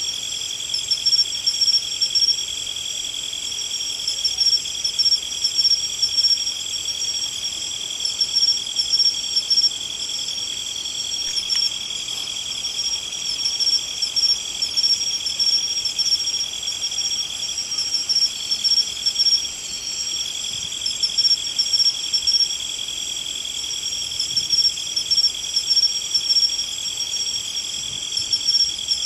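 Insects trilling in a steady high-pitched chorus, with louder pulses every second or two.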